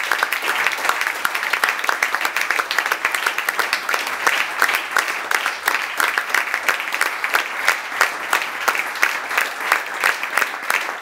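Small audience applauding, a dense steady patter of hand claps.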